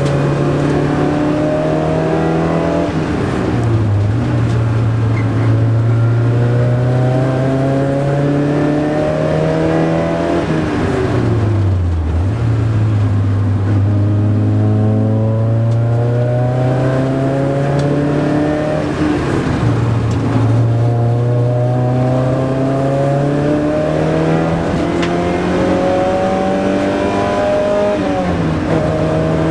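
Porsche 924 race car's four-cylinder engine, heard from inside the cabin at speed. The revs climb slowly and steadily under load, then fall away sharply, about four times over, as the car lifts off for the corners.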